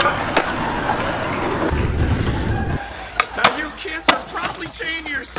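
Skateboard wheels rolling on concrete, then three sharp clacks of the board striking the ground a little past the middle.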